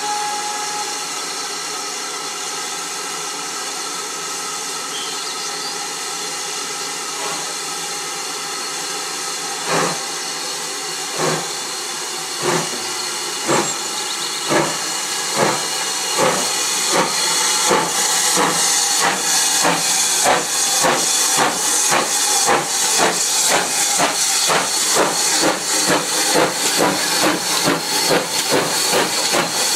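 GWR 5700 class pannier tank steam locomotive No. 4612 starting a train. A steady hiss of steam, then about ten seconds in slow exhaust chuffs begin and quicken to a fast, even beat as it pulls away.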